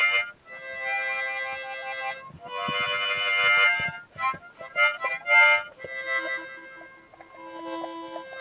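Harmonica music: chords played in short phrases with brief breaks between them.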